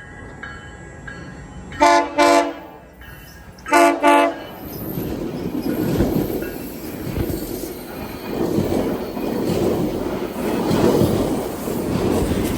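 GO Transit commuter train horn giving a salute of two pairs of short blasts, followed by the train rolling past with its wheels clacking over the rail joints.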